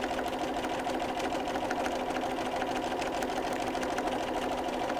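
Electric sewing machine running steadily at an even, fast stitch rate, its needle ticking as it sews a seam through two layers of flannel.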